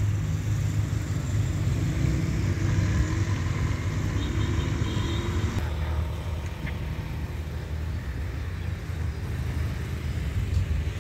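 Diesel locomotive engine running out of sight, a steady low rumble with a slight rise and fall in pitch. It eases off a little about six seconds in.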